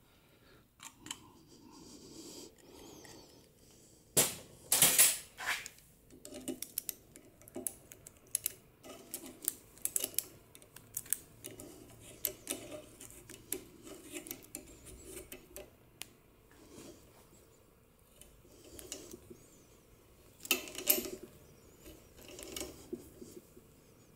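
Irregular small metallic clicks and scrapes of a hand tap being worked back and forth in an exhaust manifold's bolt hole, cutting out the remains of a broken bolt. A few louder metal clatters come about four to five seconds in and again late on.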